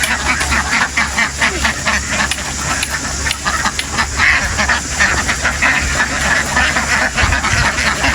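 A large flock of domestic ducks quacking in a dense, continuous din of overlapping calls, over a steady low hum.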